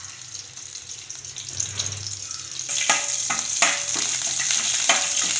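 Mustard and fenugreek seeds sizzling in hot oil in an aluminium pot, as the oil is tempered for the kuzhambu. The sizzle grows louder about halfway through as a ladle starts stirring them, with a few sharp clicks and pops.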